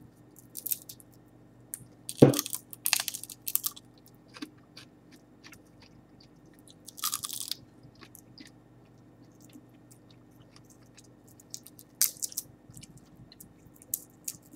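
The dry shell of a dehydrated giant water bug (Lethocerus indicus) cracking and crunching as it is broken open, in irregular sharp snaps with the loudest crack about two seconds in and a short crackling burst about halfway through.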